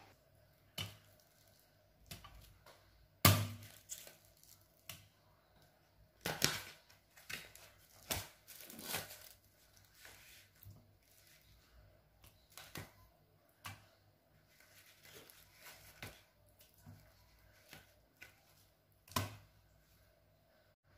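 Scattered quiet rustling, crinkling and light knocks from hands handling food and packaging in a kitchen, a few sharper clicks among them and short silences between.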